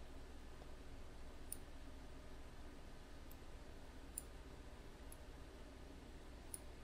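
About five faint, sharp computer mouse clicks spread over several seconds, over a low steady hum.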